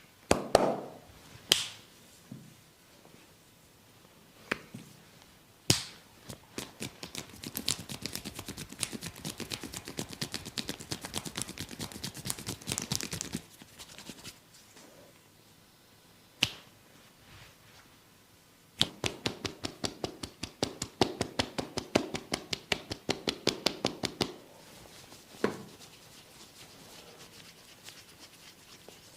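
Hand-percussion massage on bare, oiled skin. A few single sharp snaps come near the start, a couple more around 5 seconds in, and one each around 16 and 25 seconds. Between them run two long stretches of rapid, even slapping and tapping, the first lasting about seven seconds and the second about five.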